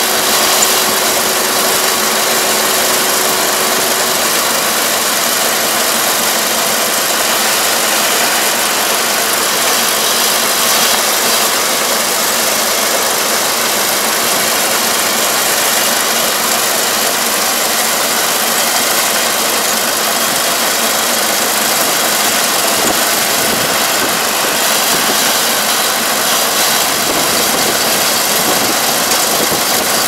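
Kubota ER470 combine harvester running while harvesting rice: a steady, loud mechanical din of engine and threshing machinery that holds constant throughout.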